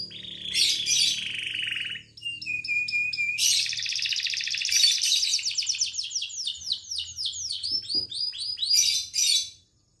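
Domestic canary singing vigorously. A buzzy phrase comes first, then a short held note about two seconds in, then long fast trills of repeated falling notes. The song stops shortly before the end.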